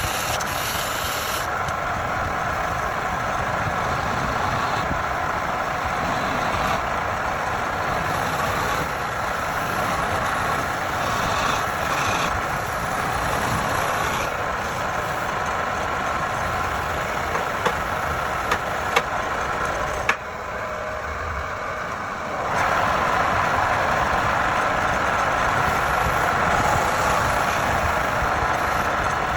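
Wood lathe running with a continuous noise of a tool cutting the spinning wood. A few sharp clicks come a little past the middle, followed by a couple of quieter seconds, then the noise returns louder.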